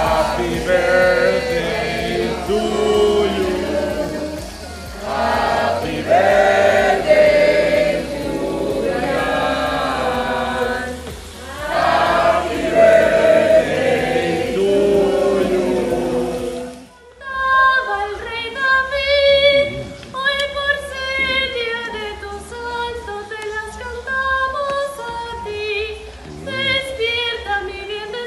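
Music with singing over a steady beat, cutting abruptly about 17 seconds in to a different stretch of singing.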